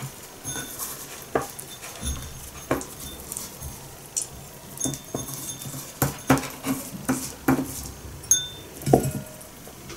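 Raw chicken drumsticks being rolled and rubbed by hand in a small ceramic bowl of dry spice mix: scattered light taps and clinks of meat and fingers against the bowl.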